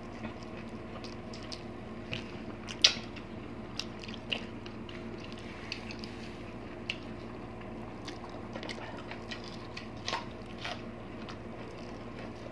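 Mouth sounds of eating braised pork leg: chewing with scattered wet lip smacks and clicks, one sharper smack about three seconds in, over a steady low background hum.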